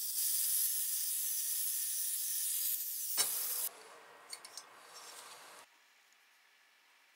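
Angle grinder's thin cut-off wheel cutting through a rectangular metal tube clamped in a vise: a steady high hiss of abrasive on metal, with a sharp clink about three seconds in, then stopping abruptly. A few light metal clicks follow, then near silence.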